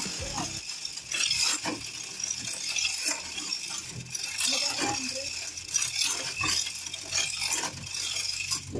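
Manual chain hoist lifting an engine: chain links clinking and rattling in irregular sharp clicks as the hand chain is pulled and the hoist ratchets.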